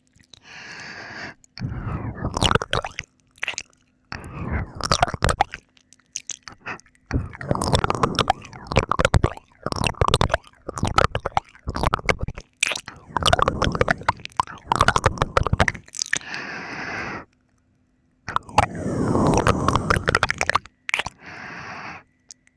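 ASMR ear-licking mouth sounds right against the microphone: wet licking, smacking and clicking, mixed with heavy breaths. They come in bursts a second or two long with short pauses between them.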